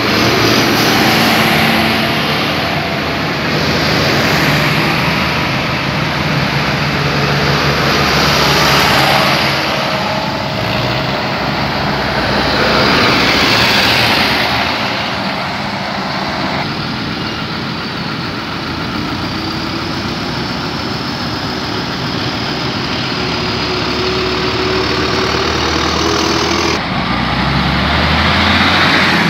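A column of diesel farm tractors driving past one after another, engines running and tyres on the road, the sound swelling each time a tractor passes close. Near the end a deeper engine rumble rises as one passes right by.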